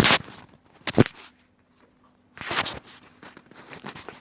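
Handling noises of small parts on a work surface: a few brief rustles with a sharp click about a second in.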